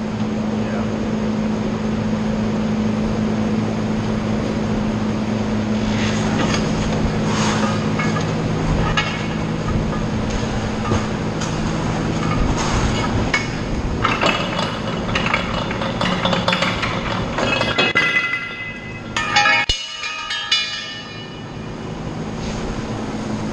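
Workshop noise from work on a trailer concrete pump: a steady low hum under scattered metal clanks and knocks of tools on the machine, with a short high-pitched squeal and a sharp clank near the end.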